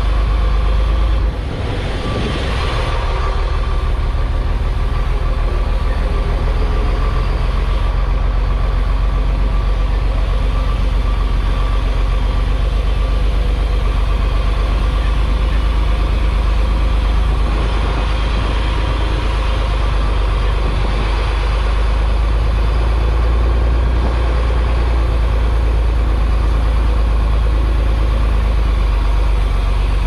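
Chenglong concrete mixer truck's diesel engine running steadily as the truck drives slowly, a loud low rumble, with a brief hiss about two seconds in.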